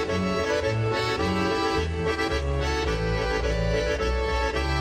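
Background music: a lively instrumental tune over a bass line of low notes that change about every half second.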